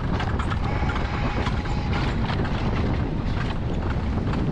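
Wiegand alpine coaster sled running fast on its steel tube rails: a steady rumble with rapid rattling from the wheels and sled.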